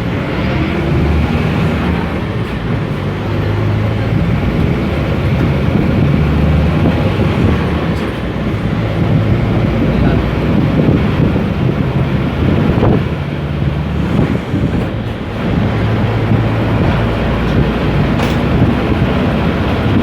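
Volkswagen Volksbus 17-230 city bus diesel engine pulling under way, heard from inside the cabin. Its low note steps up and down in pitch as the bus changes speed, over road noise and body rattles.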